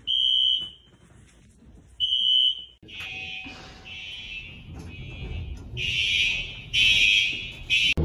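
Building fire alarm sounding: a high-pitched electronic tone beeping over and over in pulses of under a second, with a pause of about a second early on before the beeps resume.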